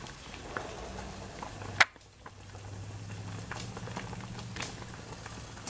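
A saucepan of black walnut husks in water boiling on an electric stove, the dark liquid bubbling and popping softly and steadily. There is one sharp click a little before two seconds in, and a faint low hum under it.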